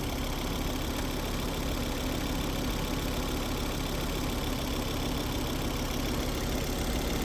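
Car engine idling steadily, left running with the radiator cap off while being tested for a suspected head gasket failure; to the owner, it sounds healthy.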